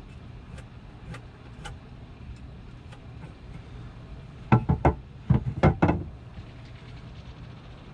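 Handling knocks from work on a hardwood board: a few faint clicks, then about halfway through a quick run of about six sharp knocks. A steady low hum runs underneath.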